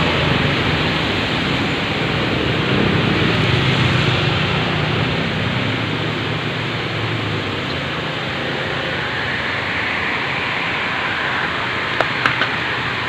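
Steady noise of passing road traffic, with a low engine drone in the first half that fades. Two or three short clicks come near the end.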